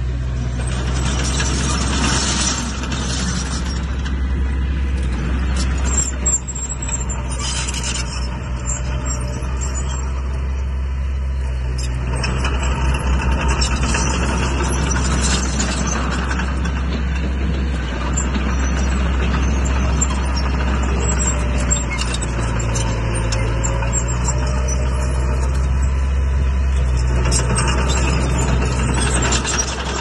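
Heavy diesel earthmoving machinery running steadily: a low engine drone with scattered clanking.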